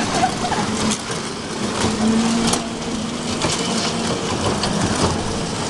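Small kiddie-ride trucks running along their track: a steady mechanical drone with scattered clicks and knocks, and a faint hum about two seconds in.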